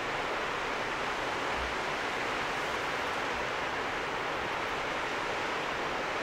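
Steady rushing of running water, even in level throughout.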